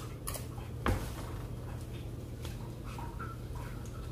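Eating sounds: a spoon knocking and scraping on takeout food containers, with one sharp click about a second in, over a steady low hum.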